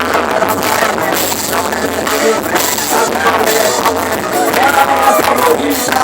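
Live forró band music playing loudly and continuously.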